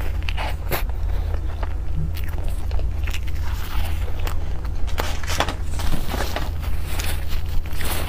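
Close-miked biting and chewing of a cream puff: many short crisp crackles and wet mouth clicks, over a steady low hum. Plastic gloves rustle as the pastry is handled.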